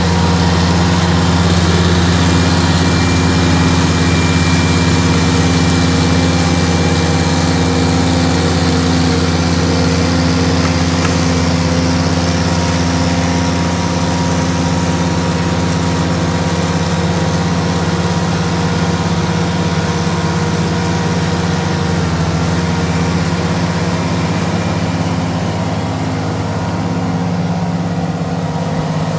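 Ditch Witch SK600 compact loader running steadily under load while its hydraulic flail mower spins and cuts through tall grass, a constant engine hum with a thin whine and a broad hiss above it.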